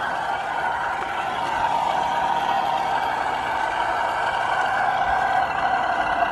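Electric motor and geared drivetrain of an RC scale crawler, giving a steady whine as it drives over dirt.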